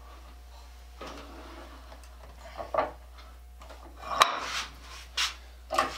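Metal saw vise on its wooden mounting block being handled and set in place on the workbench: a few short knocks and clanks, mostly in the second half.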